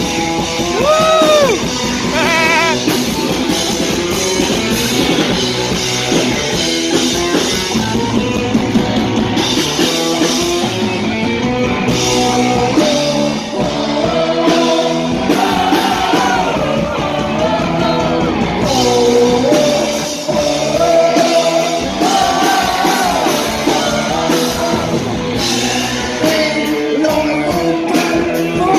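Live heavy metal band playing loudly: distorted electric guitars, bass and drums, with a singer's voice over the top.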